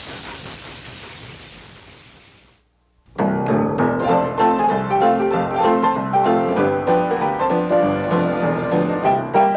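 A steam train's hissing noise fades out, and after a brief silence piano music begins about three seconds in and plays on.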